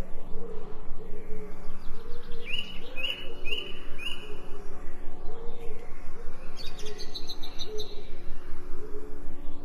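Birds chirping: a quick run of four short high chirps about two and a half seconds in and a few higher chirps around seven seconds, over a repeating low warble and a steady low background.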